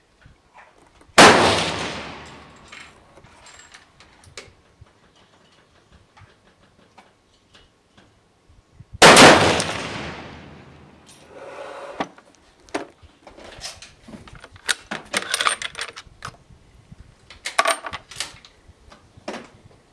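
Two shots from a .308 Winchester bolt-action rifle, a Tikka T3 Varmint, about eight seconds apart, each with a ringing echo lasting about a second. After the second shot come a run of short metallic clicks and clanks, the bolt being worked.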